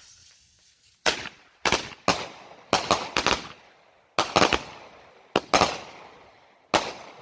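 Pint Size Powerhouse repeater cake firing: a series of sharp bangs starting about a second in, roughly a dozen over six seconds, irregularly spaced in twos and threes, each with a short fading tail.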